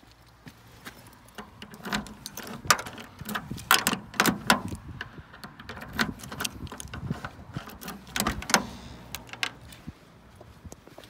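Irregular clicks and knocks of a small car's door and interior fittings being handled, thickest in the middle, over a faint low hum.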